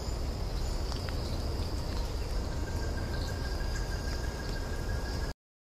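Forest ambience of insects trilling steadily in high, thin tones, with a lower trill joining about two seconds in, over a low rumble like wind. It cuts off abruptly near the end.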